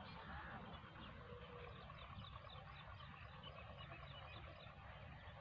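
Faint outdoor ambience: distant birds chirping in short, repeated high notes, with a low rumble underneath.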